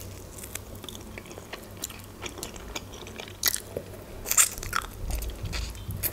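A person biting and chewing grilled chicken eaten by hand, a series of short sharp clicks, the loudest about three and a half and four and a half seconds in.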